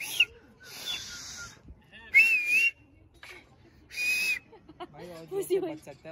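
A person whistling: about four short whistled notes, each with a wavering, up-and-down pitch and a breathy hiss, a second or two apart. Brief voices come in near the end.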